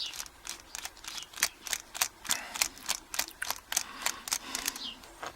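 A screwdriver turning out the screw that holds the Euro cylinder in a brass padlock: a run of sharp, fairly regular clicks, about three to four a second.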